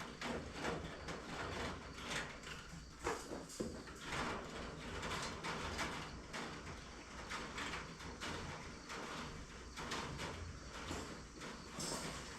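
Chicken wire being unrolled and handled over a wooden frame: irregular rattles, scrapes and knocks, several a second.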